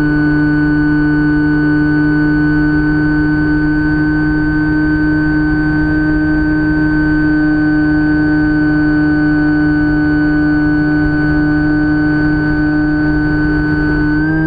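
Electric motor and propeller of a Phantom FX-61 flying wing in flight, heard from its onboard camera: a steady, even-pitched whine with a rough rushing noise low beneath it. The pitch steps up a little near the end.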